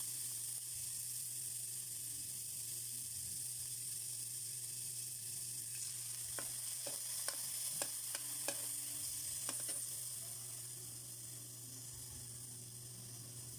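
Diced meat sizzling in an aluminium wok. A metal spatula clicks and scrapes against the pan several times between about six and ten seconds in. The sizzle softens a little near the end.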